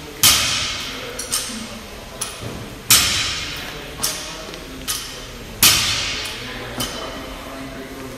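Gym weights dropped and banged on the floor, a series of sharp irregular impacts with metallic clanging. The three loudest, about a second in, near three seconds and near six seconds, each ring out for about a second in the echoing hall.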